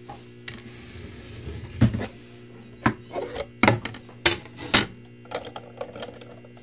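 Wooden pendulum mantel clock being turned around and handled: a handful of sharp knocks and clicks from its case, then lighter clicks as fingers work at the battery movement on its back, over a steady faint low hum.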